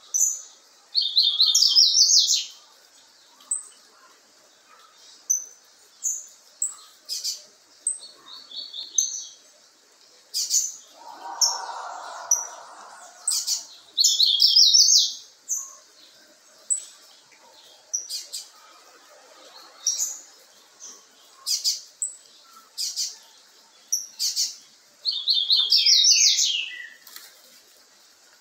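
Young double-collared seedeater (coleiro) in brown plumage calling: short high chips every second or so, and three times a quick run of rapid notes.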